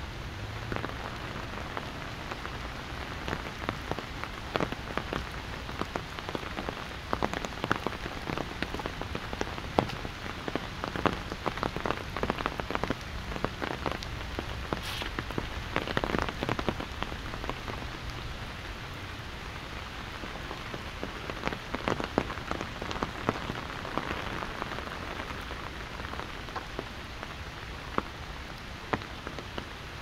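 Steady rain, with many sharp individual drops striking an umbrella held just over the microphones, a little heavier about halfway through.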